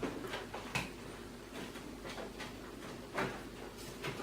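A few faint clicks and knocks of cable plugs being pulled from a Power Mac G4 and handled: one near the start, one about a second in and one about three seconds in.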